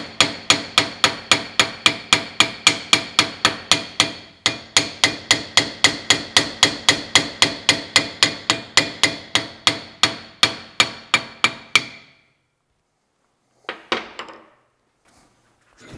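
Hammer striking metal on a steel bench vise in a fast, even rhythm of about four ringing blows a second, with a brief pause about four seconds in. The hammering stops about three-quarters of the way through, and one lighter knock follows near the end.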